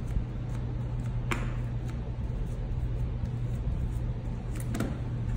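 A few soft taps as an embossing ink pad is dabbed onto a clear photopolymer stamp, over a steady low hum.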